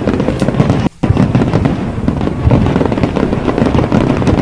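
Firecrackers going off in rapid succession: loud, dense crackling pops that break off for an instant about a second in, then carry on.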